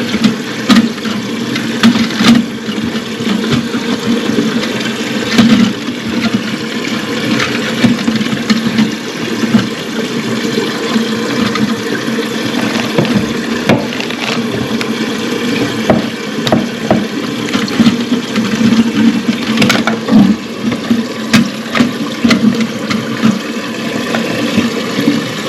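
Water running into a concealed toilet cistern through its filling valve: a steady rush with a low hum, broken by scattered knocks and clicks.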